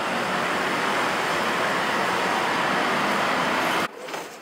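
Steady road traffic noise, cutting off suddenly near the end to a quieter indoor station ambience.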